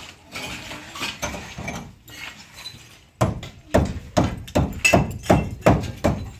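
Hammer striking a masonry block wall to break away blocks around an opening: light knocks and scraping at first, then, about three seconds in, a steady run of about eight sharp blows, a little over two a second.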